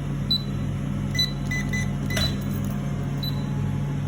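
Electronic keypad beeping: short high beeps about once a second, with three quicker, lower key-press beeps a little past a second in. A sharp click comes about two seconds in, over a steady low hum.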